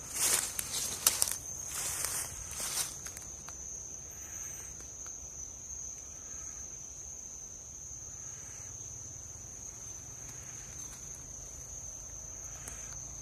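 Footsteps for about the first three seconds, then they stop and a cricket's steady high-pitched trill carries on alone.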